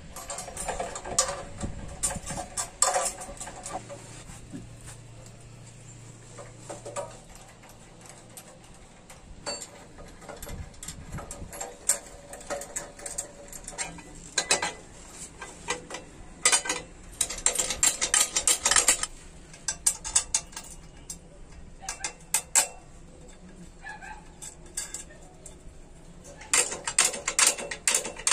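Hand wrench turning nuts on a moped's rear carrier mounts: bursts of quick metallic clicking and clinking as the wrench works back and forth, with quieter pauses between bursts.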